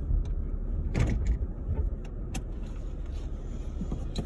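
Car idling while parked, heard from inside the cabin as a steady low rumble. A few short, sharp clicks come about one second in and again a little after two seconds.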